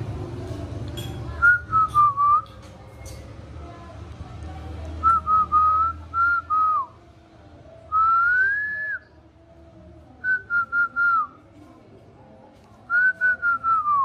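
Clear whistling in short phrases of three to five quick notes that step down in pitch, with one long rising whistle about eight seconds in. A low hum underneath stops about six seconds in.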